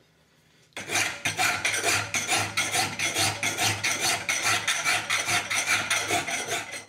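Flat steel hand file worked rapidly back and forth across the iron cusp of a thumb latch held in a vise, about three rasping strokes a second, starting just under a second in. The file is taking off the dark forged surface to leave it filed bright.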